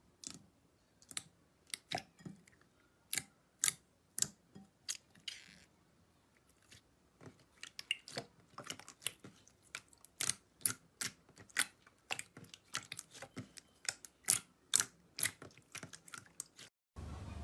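Slime being pressed and worked by hand, giving short, sharp clicks and pops from air bubbles. They come singly at first and run faster from about halfway on.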